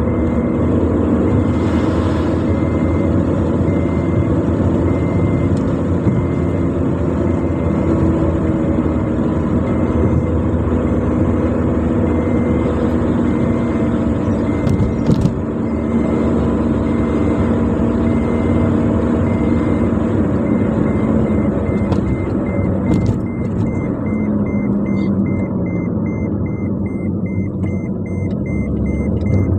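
Car driving at speed, heard from inside: steady engine and road rumble, with a faint high beep repeating steadily and quickening near the end. The engine note falls toward the end as the car slows.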